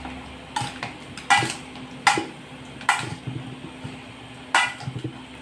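Metal spoon clinking and scraping against a stainless steel mixing bowl as pieces of grilled pork, liver and sliced onion are tossed in their dressing: sharp ringing clinks about every second, with a quicker few near the end.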